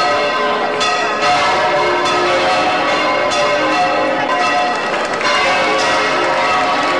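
Church bells ringing a festive peal: many strokes overlapping in dense, continuous ringing, with new strikes every second or so.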